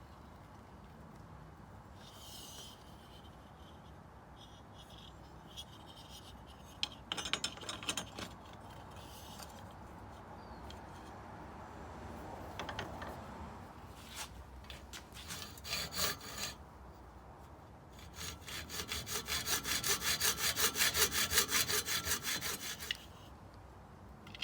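Hacksaw cutting through a .357 brass shell casing held in a vise. At first there are short, scattered strokes, then a steady run of quick back-and-forth strokes, about four a second, that stops shortly before the end.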